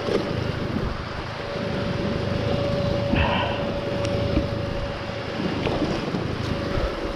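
Husqvarna enduro motorcycle engine running at a steady pitch under way, with wind buffeting the microphone and scattered knocks from the bike over rough ground. A short higher-pitched sound cuts in about three seconds in.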